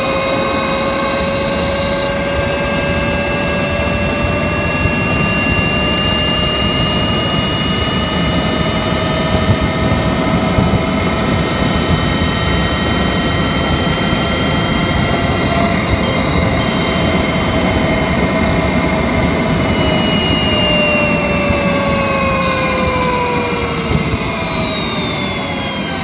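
Honda Insight i-MMD hybrid's electric drive motor and inverter whining in EV mode, engine off, heard from the engine bay over road noise. The whine climbs slowly as the car gains speed, then falls steadily over the last several seconds as it slows, and the high switching tone shifts about two seconds in and again near the end.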